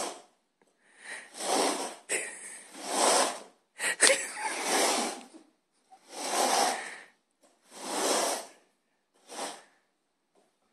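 A dog huffing and sniffing: about seven loud, breathy blows of under a second each, roughly one every second and a half.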